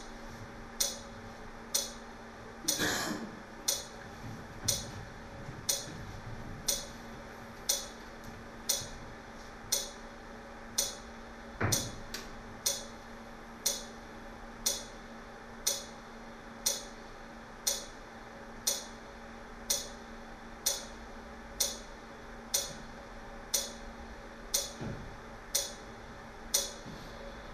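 Clock ticking evenly, about one sharp tick a second, over a faint steady hum.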